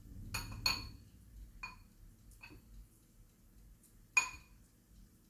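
Kitchenware clinking: about five light, separate clinks, each with a short ring, the loudest about four seconds in.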